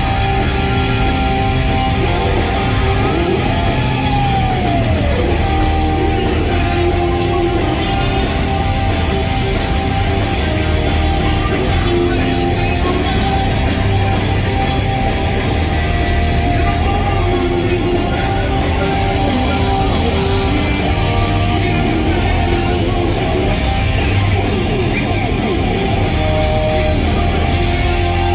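Live hard-rock band playing loud and steady, electric guitar over bass and drums, with a guitar line sliding down in pitch about four seconds in.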